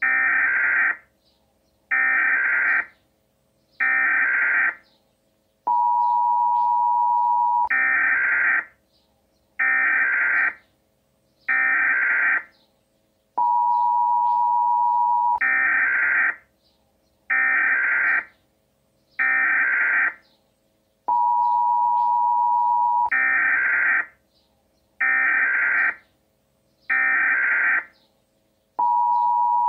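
Emergency Alert System tones: three short data bursts of the SAME header, then a steady two-second two-tone attention signal, the cycle repeating about four times.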